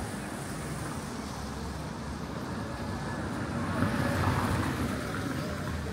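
Road traffic noise with a car driving slowly past close by, loudest about four seconds in.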